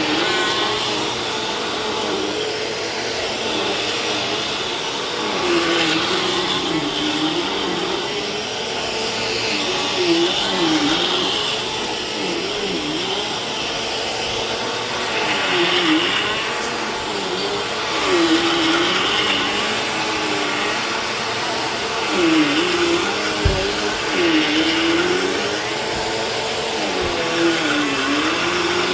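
Vacuum cleaner running steadily, its motor pitch dipping and recovering every couple of seconds. There is a short knock about two thirds of the way through.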